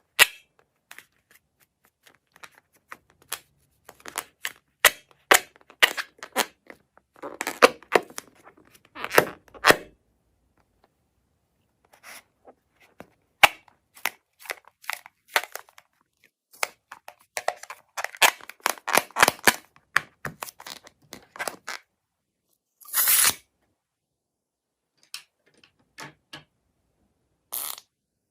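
Close-up handling noises: irregular sharp crackles and snaps coming in clusters, with a few louder, longer crackling bursts.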